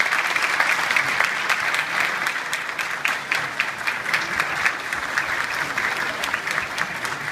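Audience applauding: dense, steady clapping that slowly dies down toward the end.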